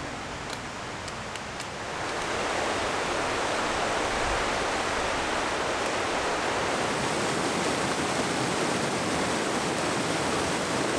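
Mountain stream rushing over rocks, a steady wash of water noise that comes in about two seconds in. Before it, a few faint clicks.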